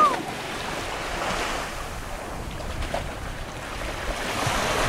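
Small waves washing on the shore, with wind rumbling on the microphone.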